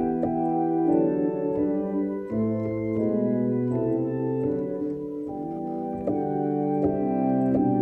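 Electronic church organ playing a Christmas tune in sustained, legato chords that change every half second to a second, with faint key clicks at the changes.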